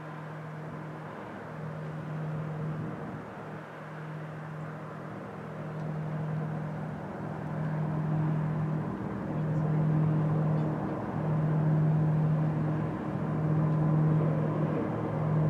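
Container ship's diesel engine heard across the water as a low hum that pulses about once a second over a steady rumble, growing louder as the ship passes.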